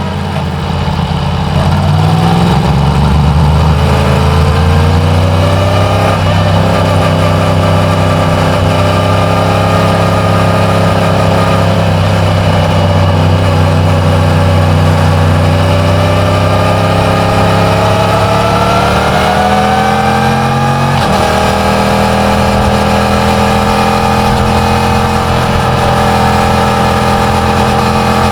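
Yamaha MT-10's crossplane inline-four engine on its stock exhaust, running under way. It pulls up in pitch near the start, holds a steady note, climbs again, and shifts abruptly about 21 seconds in.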